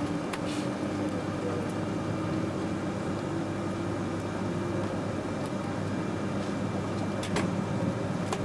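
Cabin noise of a 200 Series Joetsu Shinkansen train running: a steady rumble and hum with a faint whine that rises slightly. Two sharp clicks come through, one just after the start and one about seven seconds in.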